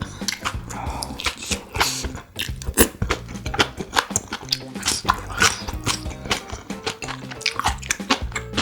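Close-miked chewing and biting of food, many short irregular mouth clicks, over background music with steady low notes.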